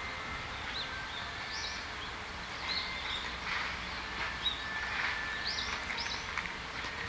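Japanese white-eyes calling: many short, thin high chirps from several birds, overlapping, over a low steady background rumble.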